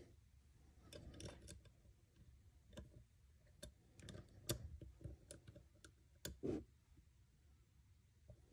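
Faint, irregular small metal clicks and taps as a hex key is fitted into and turned in the clamp screws of a gas block drilling jig. The jig's bushing had slipped because it was not tightened enough, and it is being re-tightened.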